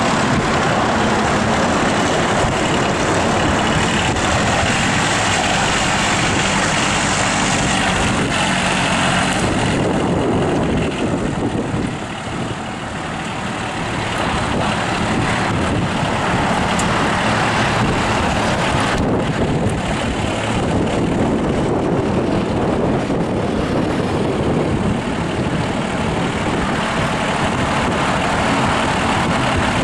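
Kioti compact tractor's diesel engine running steadily as the tractor drives about, dipping in loudness about twelve seconds in and coming back up a few seconds later.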